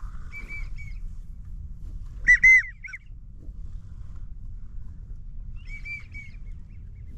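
Wigeon whistles: short two- and three-note whistled calls, faint about half a second in and again about six seconds in, with a much louder pair about two and a half seconds in.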